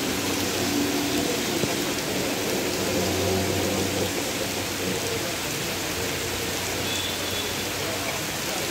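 Steady rain falling on a wet paved street and trees. A faint low hum runs underneath for a few seconds in the middle.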